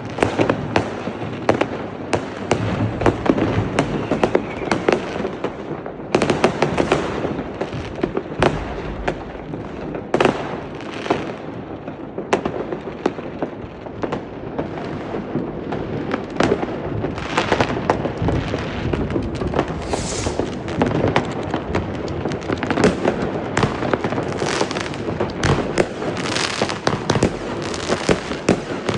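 New Year's Eve fireworks and firecrackers going off without pause, a dense stream of bangs and crackles from many directions, with louder single bangs standing out, one sharp burst about twenty seconds in.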